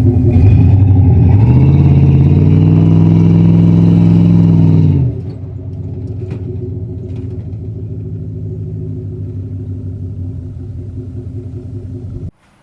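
Pickup truck engine revved up about a second and a half in and held at high revs for a few seconds, then dropping back to a steady idle. It cuts off suddenly near the end.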